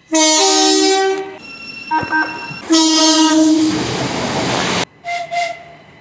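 Class 377 Electrostar electric train sounding its two-tone horn. A long blast steps from the lower note to the higher one, followed by a couple of short toots, then another long blast that gives way to a rush of noise and cuts off suddenly about five seconds in. Near the end, two brief higher-pitched horn toots follow.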